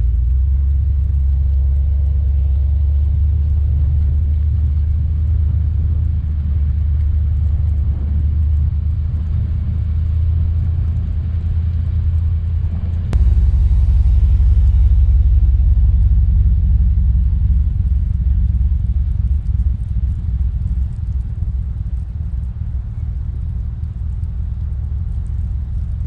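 Low, steady rumble of a pickup truck driving slowly through snow, picked up by a camera mounted on its hood. It jumps louder and deeper about halfway through, tapers off gradually and cuts off suddenly at the end.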